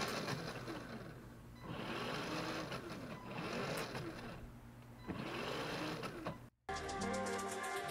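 Power Wheels car's electric drive motors and gearboxes, run through an RC speed controller with the wheels off the ground. They spin up and slow down again in several bursts, a whine that rises and falls in pitch.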